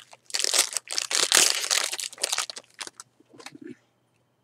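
Plastic wrapper of a 2012 Topps Series 1 jumbo pack of baseball cards being torn open and crinkled. A dense rustle lasts about three seconds, then a few soft handling sounds follow.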